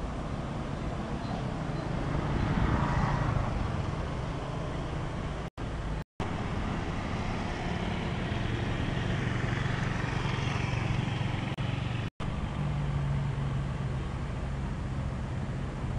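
Steady engine and road noise of a slowly moving vehicle, with a low engine hum. It swells briefly about three seconds in and drops out for a moment three times.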